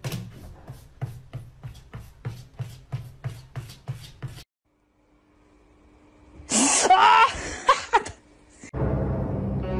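Rhythmic scratching strokes, about three a second, stop after about four seconds. After a short break comes a loud cry with rising and falling pitch, and music starts near the end.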